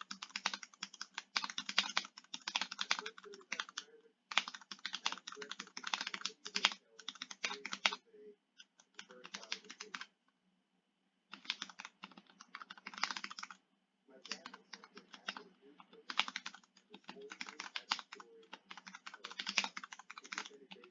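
Typing on a custom mechanical keyboard with Cherry MX Red linear switches: fast runs of keystrokes broken by short pauses, the longest about halfway through.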